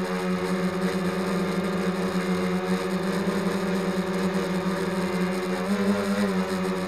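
Quadcopter's electric motors and propellers running with a steady, multi-toned hum, the pitch wavering upward briefly near the end.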